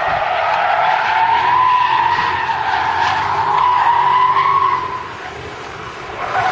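BMW E39 M5's rear tyres squealing through a drift, the pitch wavering up and down, over its 4.9-litre V8 engine. The squeal drops away briefly about five seconds in, then picks up again near the end.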